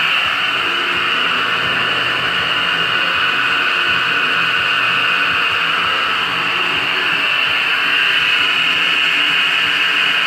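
Lockerbie pottery wheel running, a loud, steady mechanical whine over a hiss with no change in speed.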